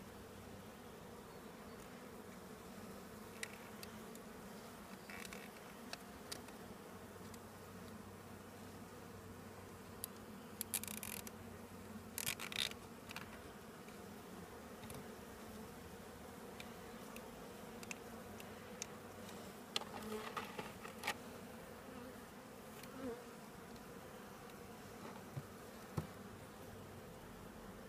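Honeybees buzzing around an open hive, a steady low hum. Scattered short clicks and rustles come from the hands working a wooden frame and a plastic zip tie.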